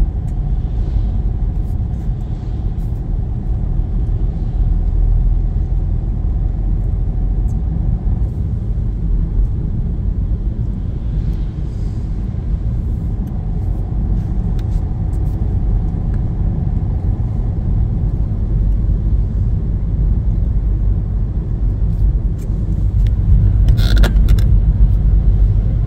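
Car driving on a wet road, heard from inside the cabin: a steady low rumble of engine and tyres, with a brief sharper sound near the end.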